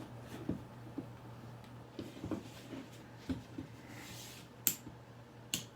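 Faint handling noises of small objects being moved: soft scattered knocks, with two sharp clicks near the end, over a faint steady low hum.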